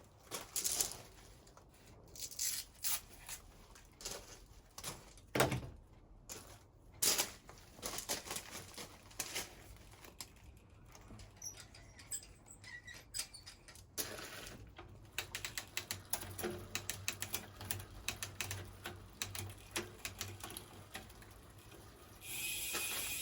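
Clicks, knocks and rattles of an electric mountain bike being handled and set up in a workstand, with a long run of fast ticking in the second half and a short hiss near the end.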